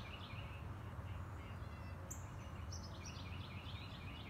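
A small songbird singing: a single high note about two seconds in, then a quick phrase of stepped high notes, over a steady low outdoor rumble.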